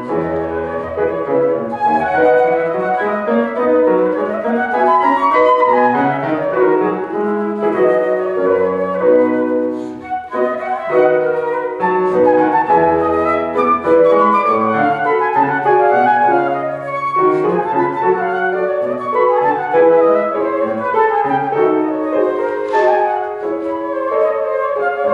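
Concert flute and grand piano playing classical music together, the flute moving in quick runs of notes over the piano accompaniment, with a fast rising-and-falling run about five seconds in.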